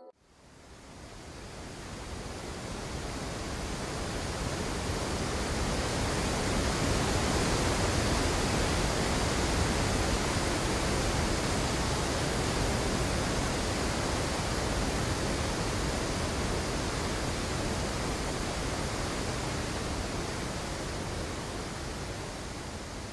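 Steady rush of water pouring over a low waterfall, fading in over the first few seconds and easing off near the end.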